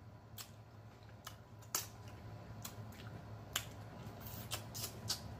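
Close-miked eating sounds: irregular soft wet mouth clicks and lip smacks, about a dozen, as a man chews and licks his fingers. A faint steady low hum runs underneath.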